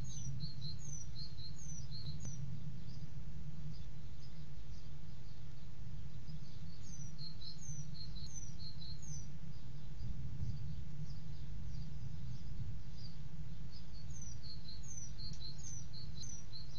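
Bird chirping: short, high, falling notes, about two to three a second, in bouts near the start, in the middle and again from near the end, over a steady low hum that is the loudest sound throughout.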